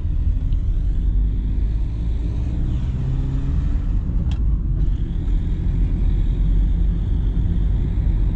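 Road and engine noise inside a moving car: a steady low rumble, with one brief click about four seconds in.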